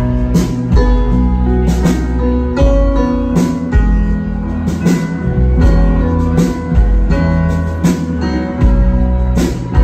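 Rock band playing live through a PA: drum kit, bass guitar and keyboards with a steady beat, a drum hit about every 0.8 seconds.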